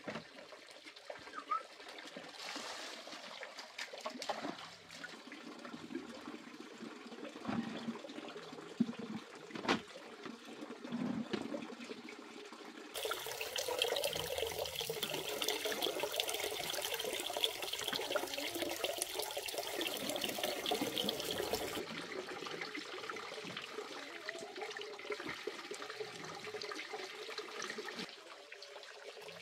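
Scattered knocks and clicks at first, then about halfway a steady stretch of water splashing and sloshing as hands work through a bucket of water full of small live fish; after about nine seconds it eases to softer water sounds.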